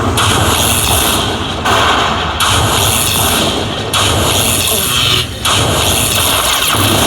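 Lightning Link slot machine playing its bonus count-up sounds as the bonus prizes are added to the win total. The sound is loud and dense and comes in sections that change about every second.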